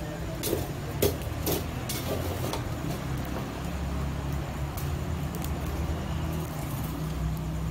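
Metal skewers and tongs clinking against a charcoal grill, several sharp clinks in the first few seconds and a couple more later. A steady low mechanical rumble runs underneath.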